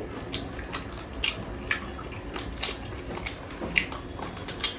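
People eating whole chicken: chewing and pulling meat apart, with irregular wet clicks and smacks.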